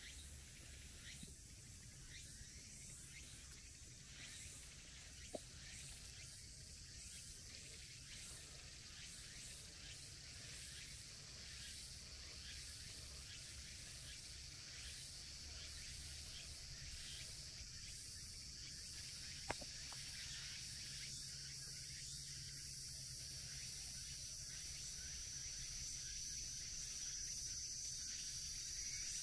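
Faint outdoor background with a steady high-pitched insect drone that grows louder toward the end. Two brief clicks stand out, one about five seconds in and one about twenty seconds in.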